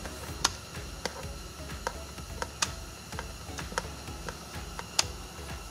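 Light, irregular clicks, about one or two a second, from a Torx screwdriver working a screw loose from the steering-wheel switch housing of a Dodge Journey, over faint background music with a low hum.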